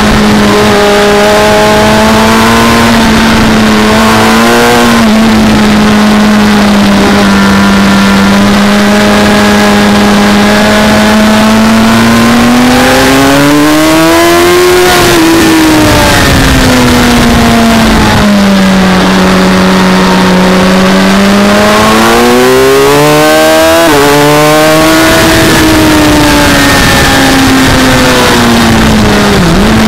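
Sport motorcycle engine heard from on board at track speed, high in the revs. Its pitch climbs and falls as the throttle is opened out of corners and shut for braking. The revs peak about 15 s in and again around 25 s, with a quick drop near the end. Wind rush runs underneath.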